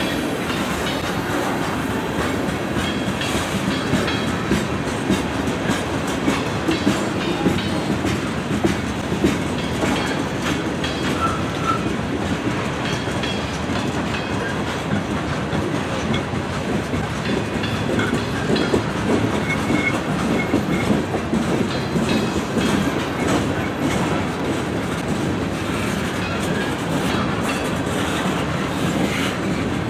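Freight train of tank cars and covered hoppers rolling past, wheels clicking over the rail joints in a steady clickety-clack over a continuous rumble.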